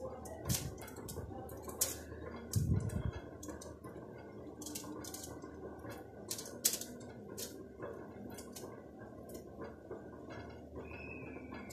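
Metal spoon clicking and scraping as egg-mayonnaise filling is scooped from a glass bowl and spread onto bread, a dozen or so sharp clicks scattered through. A dull thump about three seconds in.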